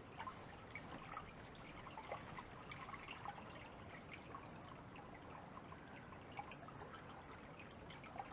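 Faint water trickling and dripping: a steady light splash with many small drops.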